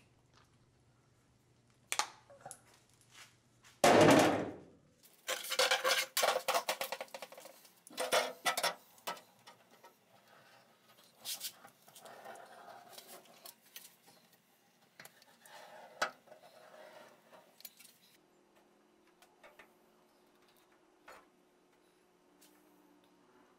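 Metal caulking gun clicking and clattering as seam sealer is squeezed into the floor-pan seams of a truck cab, with one loud knock about four seconds in and a quick run of clicks just after it.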